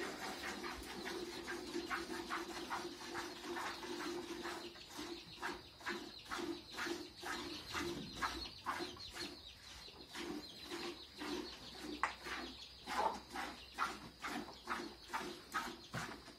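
Milk squirting into a pail as a cow is milked by hand, a steady rhythm of about two squirts a second.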